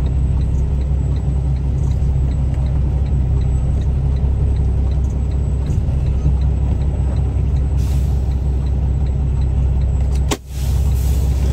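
Truck's diesel engine idling steadily, heard from inside the cab, with a faint regular ticking about twice a second. About ten seconds in the sound dips suddenly with a sharp click, then the idle carries on.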